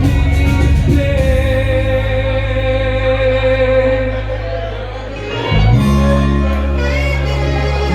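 Live Dutch pop ballad: a sung note held for a few seconds over a steady, bass-heavy band accompaniment, dipping briefly before a new chord comes in after about five and a half seconds.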